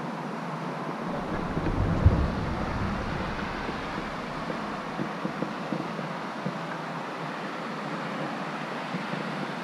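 Wind buffeting the microphone over a steady hiss. The gust swells about a second in, jolts sharply near two seconds, and dies away by about four seconds.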